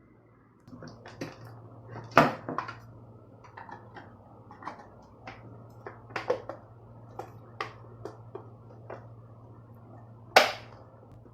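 Scattered clicks and knocks of hard plastic parts and tools being handled while a soundbar is taken apart, with two sharp, loud knocks, one about two seconds in and one near the end, over a steady low hum.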